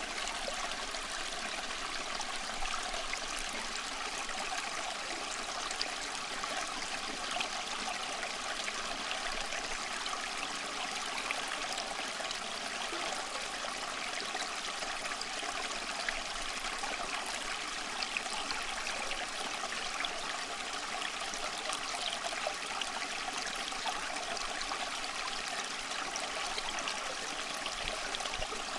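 Steady rushing water like a flowing stream, an even hiss with no breaks or changes.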